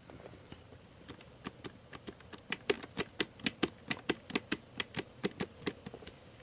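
A rapid, even run of light clicks or taps, about six a second, growing louder over the first couple of seconds and then easing off near the end.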